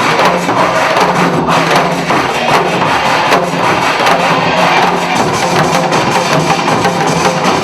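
Upbeat song playing with a group striking janggu drums along to the beat in steady rhythmic strokes.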